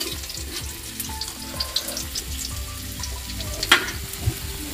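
Cassava leaves sizzling and crackling as they stir-fry in hot oil in a pan, with a sharp click about three-quarters of the way through.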